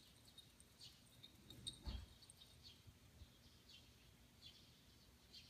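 Near silence: quiet street ambience with faint, scattered high chirps of small birds and a soft low thump about two seconds in.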